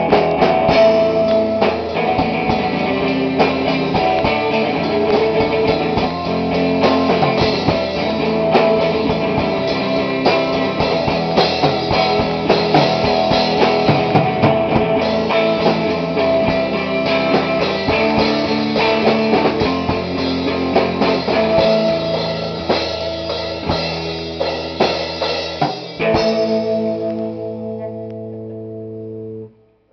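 Rock band playing loudly, with guitar and drum kit. About 26 seconds in the drumming stops and a final chord is left ringing, then it cuts off sharply near the end.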